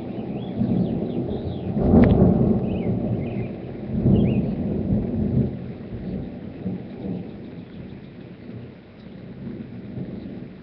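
Thunder: a crack about two seconds in rolls into a low rumble, swells again around four seconds, then slowly fades. Birds chirp over the start of it.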